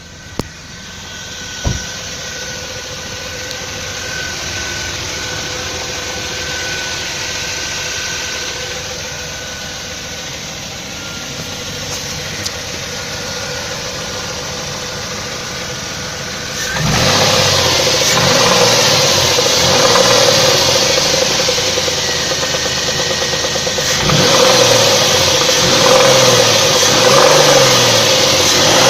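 A warmed-up 2.7-litre engine running, the subject of a complaint of knocking when warm. After a couple of sharp clicks near the start it runs steadily, then about 17 seconds in it gets markedly louder and stays so, with a rhythmic beat.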